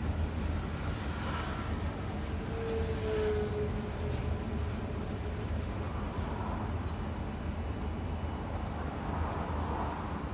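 A bus travelling, with a steady low engine and road rumble. About three seconds in, a short tone sounds briefly and falls slightly in pitch.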